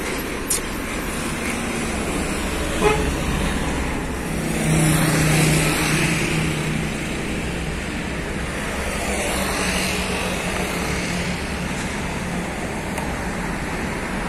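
Heavy trucks in slow road traffic, diesel engines running over a steady road noise. A low steady tone rises out of the traffic about five seconds in and again around ten seconds.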